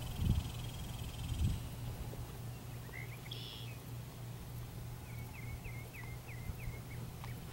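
Outdoor field ambience: a low steady rumble under an insect's fine buzzing that stops about a second and a half in. A bird gives a short call about three seconds in, then a run of quick chirps near the end.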